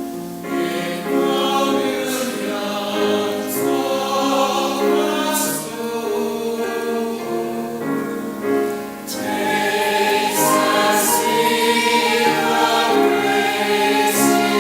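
Choir singing sacred music, holding sustained notes that move from chord to chord.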